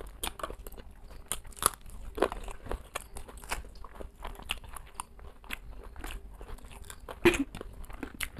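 Close-up eating sounds: irregular crunching bites and chewing of crumb-fried snacks and raw green chillies, with one louder crunch near the end.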